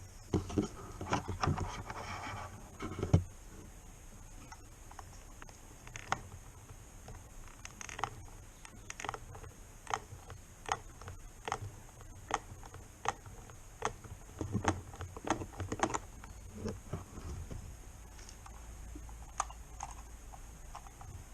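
Scattered sharp clicks and knocks of hand work on a skid-plate part: plastic and metal pieces and tools being handled and set down. There is a cluster of knocks at the start, the loudest about three seconds in, then a run of single clicks.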